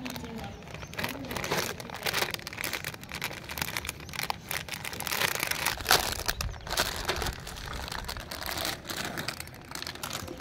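Thin clear plastic packaging bag crinkling and crackling in irregular bursts as it is handled and opened to take out a toy water gun.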